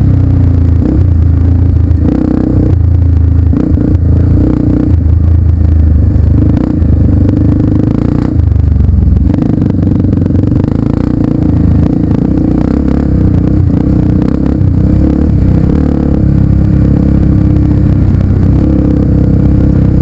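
A vehicle engine running loudly and steadily, its pitch shifting in steps.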